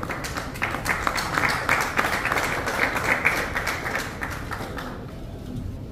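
Audience applauding, the clapping thinning out and stopping about five seconds in.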